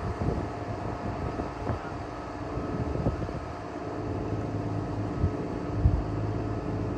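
Lift truck's engine running steadily, with a couple of short low thumps near the end.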